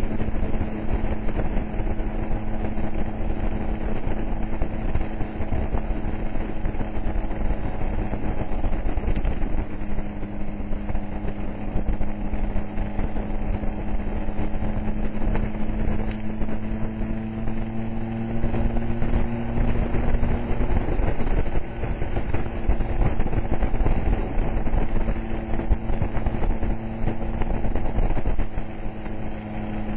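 Vespa scooter engine running while riding at road speed, its note climbing slowly, then dropping away about two-thirds of the way through and coming back near the end, with wind rumbling on the microphone.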